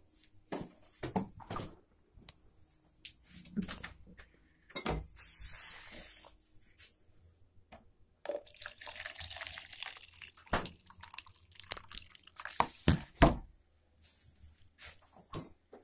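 Water running from a tap in two short spells, the first about five seconds in and the second from about eight to eleven seconds, among sharp knocks and handling clatter.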